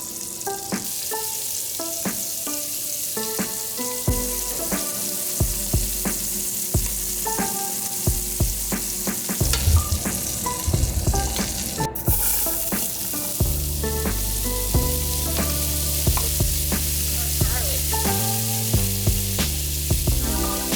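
Scallops searing in hot butter and olive oil in a pan: a steady sizzle with many small pops and clicks.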